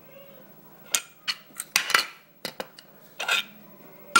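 Light metallic clinks and scrapes, several in a row, as the overvoltage protection relay's circuit board is slid back into its aluminum case.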